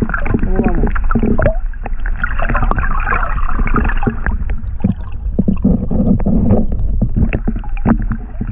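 Muffled underwater water noise picked up by a submerged camera, with many small knocks and clicks. The water is being stirred by a chinook salmon and the hands holding it as the fish is revived for release.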